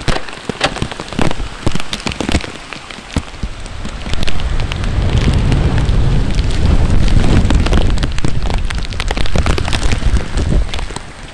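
Heavy typhoon rain pouring down, with many sharp drop taps close to the microphone. About four seconds in, a loud low rumble sets in beneath the rain.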